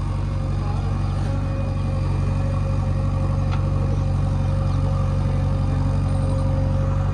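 Heavy diesel engine running steadily at a constant speed, with an even, unchanging rumble.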